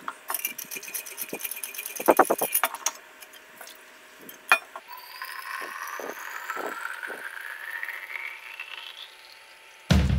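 Stainless-steel Thermos vacuum flask being opened and filled: metallic clinking and rattling for the first few seconds, a sharp click, then water poured into it, its pitch rising steadily as the flask fills. Music comes in at the very end.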